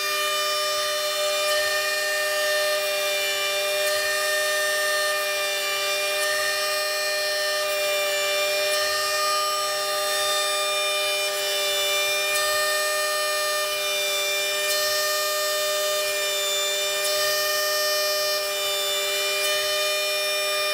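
Brushless CNC spindle (Turnigy P2627L 4200kv outrunner motor on a helicopter speed controller) running at high speed while its bit engraves traces into a copper-clad circuit board. It makes a steady, high-pitched whine of several held tones, and the higher tones waver slightly.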